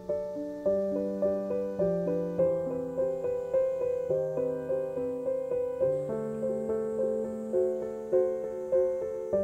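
Background piano music: a gentle melody of struck notes over held chords, a new note about every half second.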